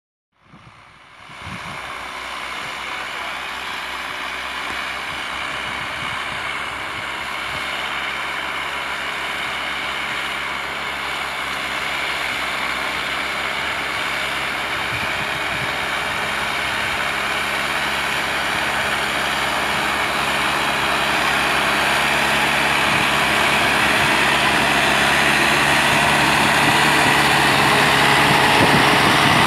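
Massey Ferguson 2635 tractor's diesel engine running steadily under load while pulling a mouldboard plough through soil. It grows gradually louder as the tractor comes close.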